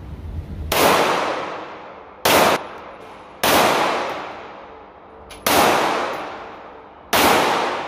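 Five gunshots fired one to two seconds apart. Each sharp report trails off in a long echoing decay, except the second, which stops short.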